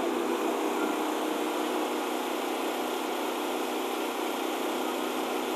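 Two open-frame Westinghouse 9500 portable generators running, a steady, even engine drone that is loud at the food truck's service window, about 78 to 79 dB there.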